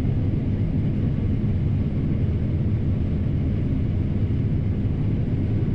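John Deere T670i combine harvester running steadily: a constant low mechanical rumble with no change in pitch or level.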